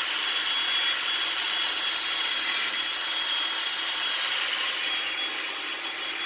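Steel wire brush scrubbing dirt off a brake caliper: a steady, scratchy hiss.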